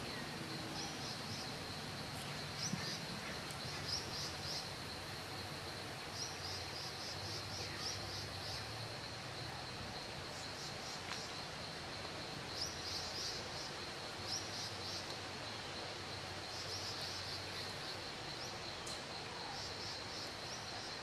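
Outdoor forest ambience: a steady high-pitched insect drone, with repeated short runs of quick bird chirps over it.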